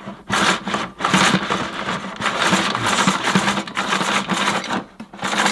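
Power cord of a Miele S228i cylinder vacuum being pulled out of its spring-loaded cord reel in a few long pulls, the reel whirring and the flex rattling through the outlet. The reel will not lock the cord out, which the owner suspects is a perished rubber brake piece.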